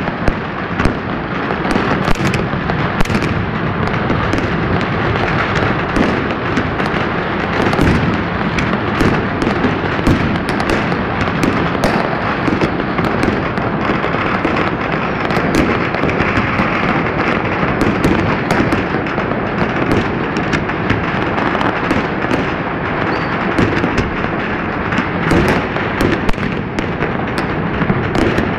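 Many fireworks going off at once across a city: a continuous crackling barrage with frequent sharp bangs and no gaps.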